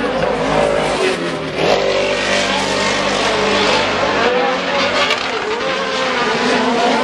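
A pack of short-course off-road race trucks racing, their engines revving up and down in pitch as they accelerate, jump and back off.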